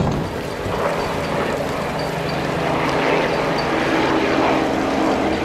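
Powerboat engine running steadily: a low, even engine drone under a broad rushing noise.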